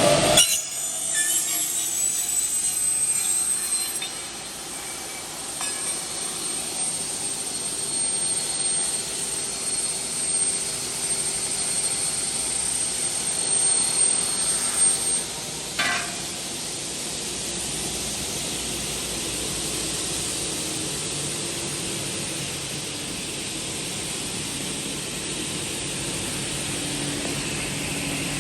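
Double-head aluminium cutting saw running, its 550 mm blades spinning with a high whine that rises over the first few seconds and then holds steady while it cuts aluminium profile. There is a sharp knock about sixteen seconds in.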